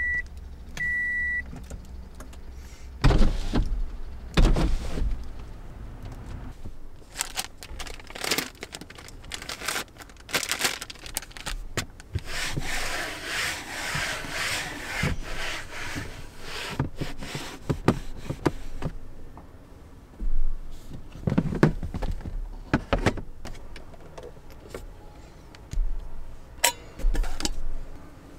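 A short electronic beep, then a run of knocks, clicks and rustling as objects are handled, with a longer rustling stretch in the middle.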